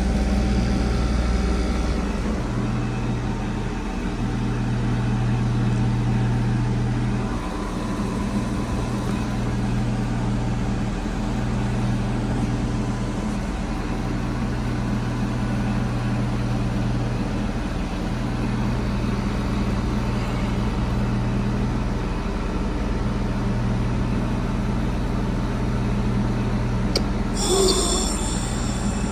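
Several heat pump outdoor units running in heat mode: a steady, low hum of compressors and fans with a few lasting low tones. A click and a brief higher-pitched sound come near the end.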